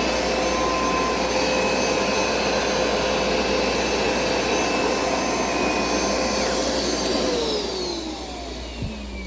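Hoover SmartWash carpet cleaner running steadily, then switched off about seven seconds in, its motor whine falling as it winds down. A light knock follows near the end.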